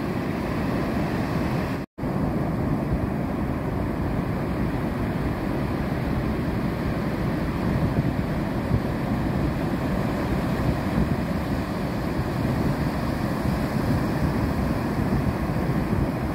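Steady rush of surf breaking on a sandy shore, with wind buffeting the microphone; the sound drops out for an instant about two seconds in.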